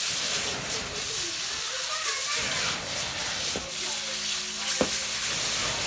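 Marinated pork tapa slices sizzling as they fry in hot oil in a wok, with a couple of sharp clicks about three and a half and five seconds in.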